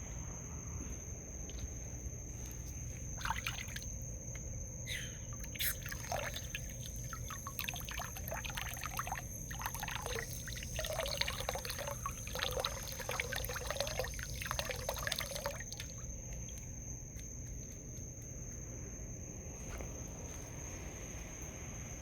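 Wild raccoons eating juicy food, with wet chewing and slurping noises for about twelve seconds that stop well before the end. A steady high cricket trill runs underneath.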